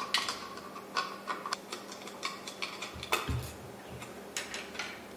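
Small metal parts of a ceiling light fixture (chain, bracket, lock nut) clicking and clinking irregularly as the fixture assembly is handled and taken down, with a duller knock about three seconds in.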